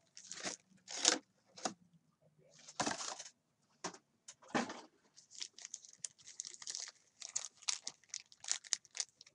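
Foil trading-card pack wrappers crinkling and tearing as packs are ripped open, in a run of short rustles, quicker and more frequent in the second half.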